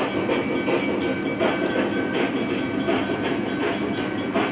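Model trains running on the layout's track: a steady rumble of wheels over rail joints, with a faint steady whine and scattered clicks.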